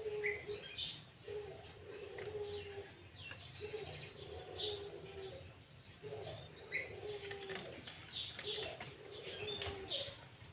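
Sooty-headed bulbul (kutilang) and other birds calling: quick falling chirps and short whistled notes, over a low cooing note repeated every second or two.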